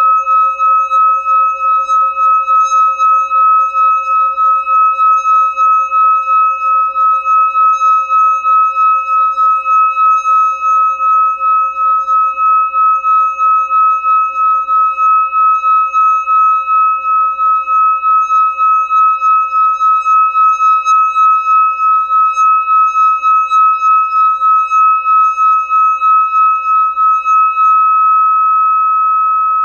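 Hand-held metal singing bowl sung by rubbing a mallet around its rim: a steady ringing with one strong high tone over a lower hum, pulsing in loudness two or three times a second. Near the end the mallet leaves the rim and the bowl rings on smoothly.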